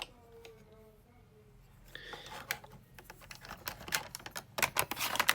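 Quick, irregular plastic clicking and tapping from handling a Buzz Lightyear action figure, starting about two seconds in.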